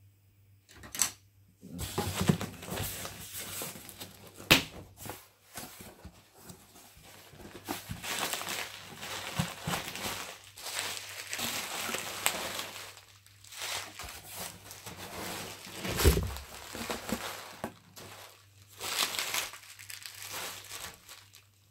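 A cardboard box being opened and unpacked: packing tape tearing, cardboard flaps and a loose cardboard sheet handled, and bubble wrap crinkling. The rustling starts about two seconds in, with a few sharp clicks and a low thump near the end.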